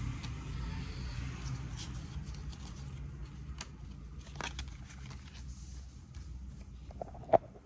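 Faint handling of trading cards: light clicks and scrapes, with one sharper click near the end. A low rumble fades underneath.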